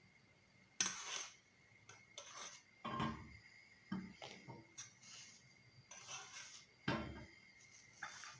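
Metal spoon clinking and scraping against a pot in a series of separate light knocks as foam is skimmed off milk boiling with onion.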